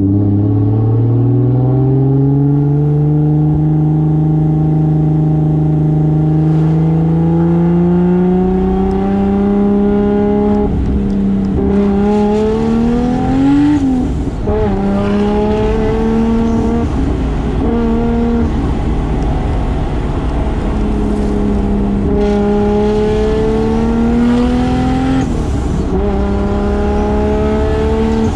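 Single-turbo Toyota 2JZ straight-six in a 1995 Toyota Soarer, under way. The engine pitch climbs slowly through a gear for about ten seconds, rises once more, then drops sharply about fourteen seconds in. It then holds fairly steady and climbs gently again near the end.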